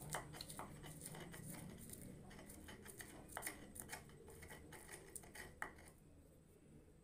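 Stone pestle pounding and grinding garlic in a flat volcanic-stone mortar (cobek and ulekan), giving faint irregular clicks and scrapes of stone on stone, about two a second, thinning out near the end.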